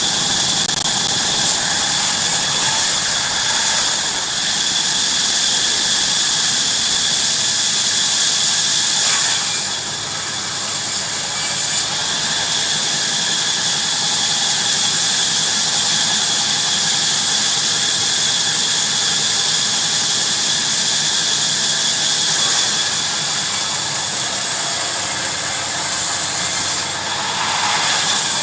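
Heavy-duty bandsaw cutting through wood: a steady, high-pitched squealing hiss with a ringing tone, easing slightly about ten seconds in.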